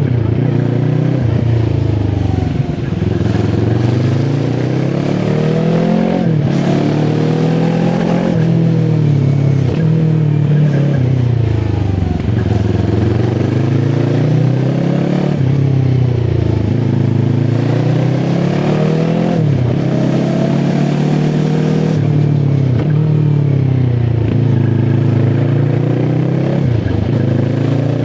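QJ SRT 450 RX motorcycle engine pulling on a ride: the revs climb again and again and fall back at each gear change, several times over, with a steady rush of road and wind noise underneath.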